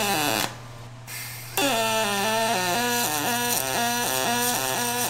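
HTP Pro Pulse 220 MTS welder running double-pulse (pulse-on-pulse) MIG on aluminum pipe with 4043 wire: the arc gives a pitched buzz that steps between a higher and a lower tone about twice a second. About half a second in the arc stops for about a second, then strikes again and carries on.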